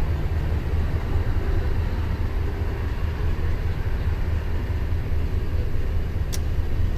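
Steady low rumble and hum, with a single sharp click about six seconds in.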